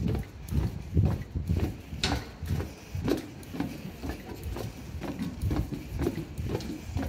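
A walker's footsteps on a trail, about two steps a second, each a soft low thud.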